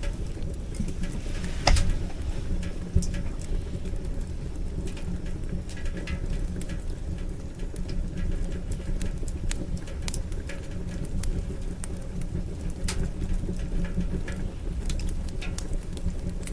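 Heavy rain drumming on the armoured vehicle's roof, heard from inside: a steady low rumble with many scattered sharp ticks of drops, one louder tick a little under two seconds in.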